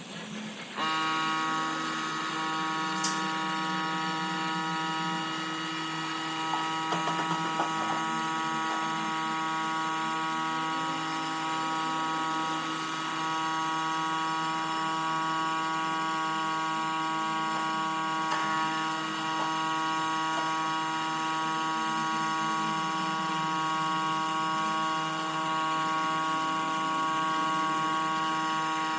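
An electric motor starting about a second in and running steadily at constant speed, with a steady whine.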